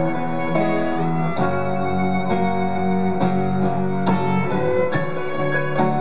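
Live instrumental acoustic ensemble playing: two acoustic guitars strumming and picking under violin and cello bowing held melody notes.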